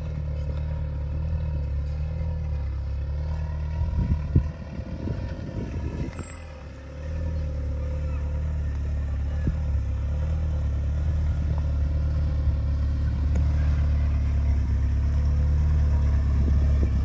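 Engine of a modified Jeep Wrangler 4x4 running as it drives off-road over rough grass, with a few knocks about four seconds in. It eases off briefly around the middle, then grows steadily louder as it comes closer.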